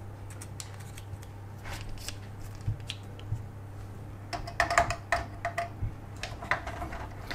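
Small screwdriver turning out the heatsink retaining screws on the back of a graphics card: faint scattered clicks, with a busier run of clicks about four and a half seconds in, over a low steady hum.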